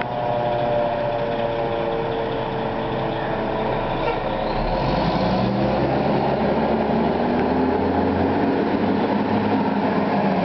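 Federal Signal Q2B mechanical siren winding down, its tone falling slowly over the first few seconds, over the rumble of the fire truck's engine. About halfway through the engine comes up and rises steadily in pitch as the truck gets under way.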